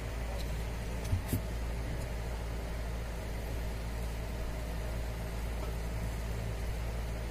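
Steady low hum, with two brief knocks a little over a second in.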